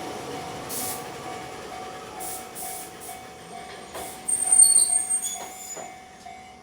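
Hokuriku Railroad 7000 series electric train running on the track, with a level-crossing warning bell pulsing steadily at about two to three strokes a second. A brief high squeal from the wheels comes about four seconds in, and the train noise fades towards the end.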